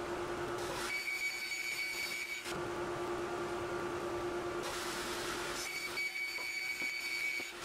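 Bandsaw running with a steady hum as its blade cuts a circle out of an MDF panel turned on a pivot jig. A high, squealing whine with a rasp comes in twice, about a second in and again past five seconds, while the blade is in the cut.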